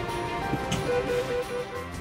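Background music: held notes with a short run of repeated notes in the middle.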